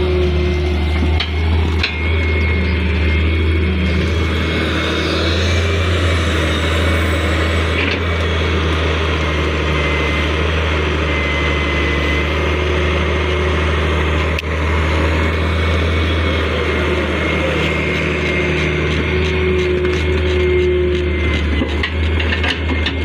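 Diesel engine of heavy earthmoving machinery running steadily, with a thin steady whine above it and a few brief knocks.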